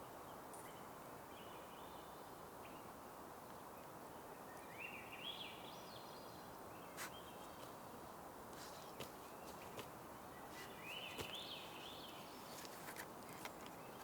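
A songbird singing three short phrases of quick rising notes over a steady, faint background hiss, with scattered sharp clicks.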